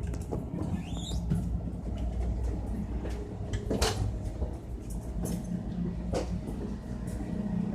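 Train rumbling steadily, with several sharp knocks and rattles, the loudest about four seconds in, and a brief high squeak about a second in.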